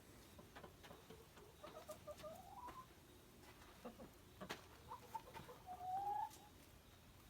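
Chickens making faint, soft calls that rise in pitch, one group about two seconds in and a louder one near six seconds, with scattered light clicks and taps.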